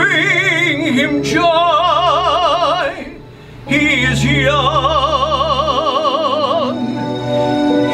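Operatic singing with a wide, even vibrato over a lower accompanying part. It breaks off briefly about three seconds in, then resumes with long held notes.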